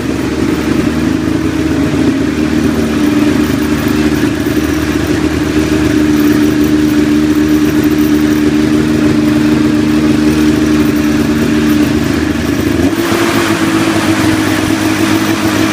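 Polaris Indy Trail's 488 fan-cooled two-stroke engine running loudly at a steady speed. About thirteen seconds in, the deep rumble drops away and a higher rushing sound takes over.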